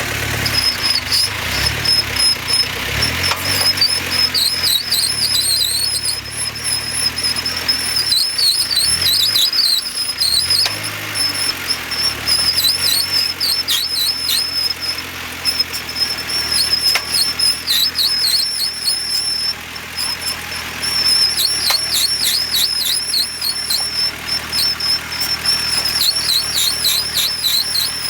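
A vehicle's abnormal noise: a high-pitched squeal that warbles and dips, coming and going in patches over the low running of the engine. The owner is sure it comes from the front differential housing or a collar there.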